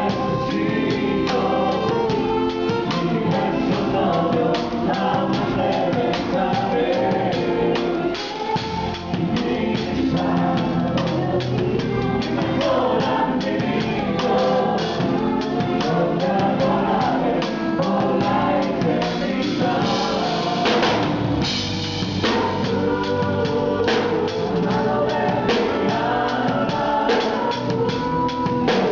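Live band music with a drum kit playing throughout, its drum strokes and cymbals under sustained instruments or voices.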